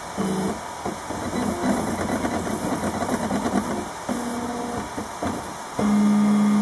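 RepRap Mendel 3D printer's stepper motors whining as the print head moves while printing, a run of short tones that jump in pitch with each move, with fast ticking between them. Near the end one steady tone is held for about a second, the loudest part.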